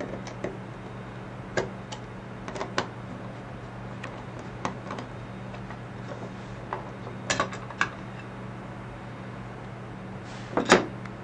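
Screwdriver backing small screws out of a Stenner peristaltic pump's plastic feed rate housing: scattered light clicks and ticks, with a couple of louder knocks near the end, over a steady low hum.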